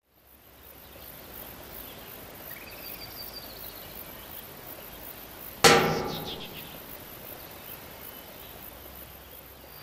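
Faint outdoor ambience with a few faint high chirps, then a single loud thud about five and a half seconds in that fades away over a second or so.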